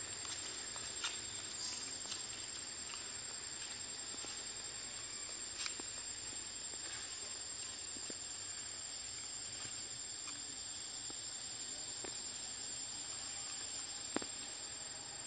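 Steady high-pitched insect drone over a constant hiss, with faint scattered clicks and one sharper tick about fourteen seconds in.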